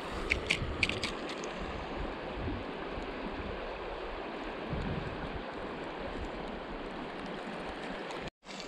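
River water rushing steadily, with a few light clicks in the first second or so.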